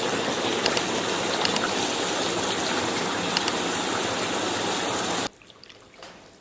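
Steady rush of running water with a few faint clicks, cutting off suddenly about five seconds in.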